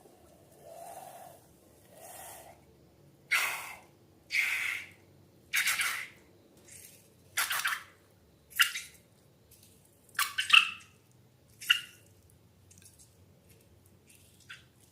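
Slime being handled: a series of about ten short, wet squelching sounds, irregularly spaced, the later ones sharper and crisper.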